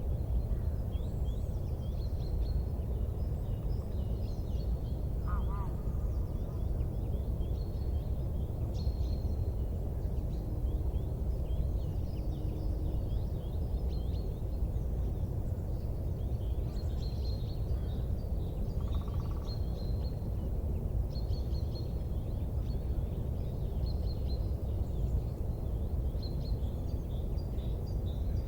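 Small birds chirping and twittering over and over, with a few short whistled notes, above a steady low background noise.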